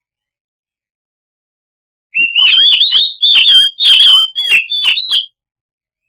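Oriental magpie-robin (kacer) singing a loud, rapid run of whistled phrases that starts about two seconds in and lasts about three seconds, broken into several short bursts.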